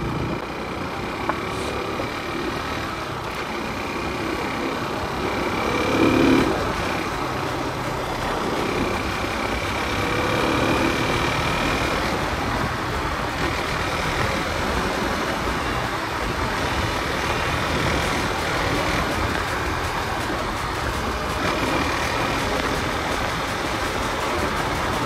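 KTM RC 200 single-cylinder motorcycle running at steady road speed, heard from the rider's seat with wind rushing over the microphone. There is a brief swell in the sound about six seconds in.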